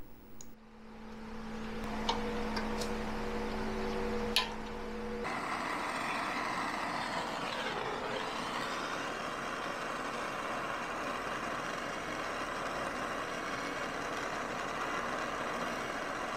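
TIG welding arc on a cast-aluminum engine case: a steady buzz and hiss that starts about five seconds in and carries on. Before it there is a lower machine hum with a few clicks.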